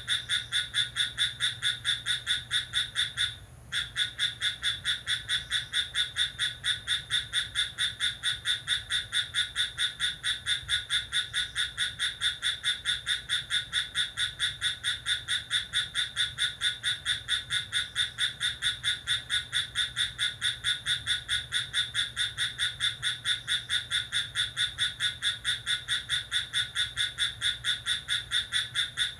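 Crickets chirping in a steady, even pulse of about three chirps a second, dropping out briefly a few seconds in.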